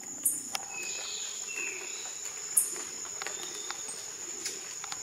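Tropical forest insects keep up a steady high drone. Over it come two short, sharp high chirps, one near the start and one about halfway through, and a faint falling bird call about a second and a half in.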